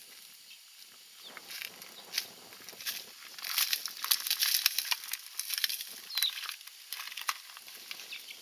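Footsteps crunching through dry crop stubble and straw: a dense crackle that grows louder toward the middle and then fades.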